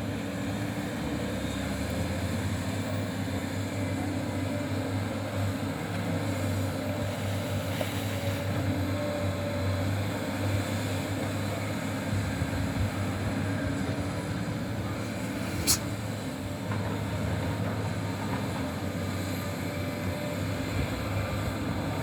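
Heavy diesel engines of Sany excavators running steadily with a low drone while they dig ore, with one sharp click about two-thirds of the way through.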